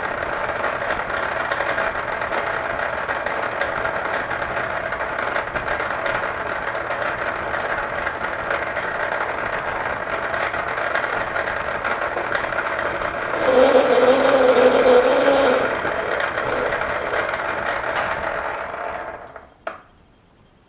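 Metal lathe running while single-point cutting a thread, with a louder stretch of about two seconds partway through that carries a steady tone. The lathe then runs down and falls quiet near the end, followed by a single sharp click.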